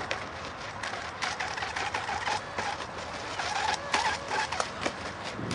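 Sigma Evo RC racing boat's motor running at speed on the water, a wavering whine that comes and goes, over a noisy background full of short clicks and crackles.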